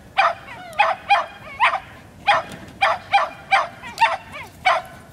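A dog barking excitedly while running beside its handler: about a dozen short, high-pitched barks in quick succession.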